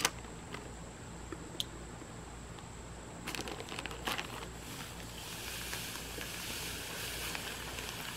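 A bag of sugar crinkling as it is torn open, with a cluster of crackles about three seconds in. From about five seconds in, granulated sugar pours out of the bag into a bucket of muscadine juice with a steady hiss.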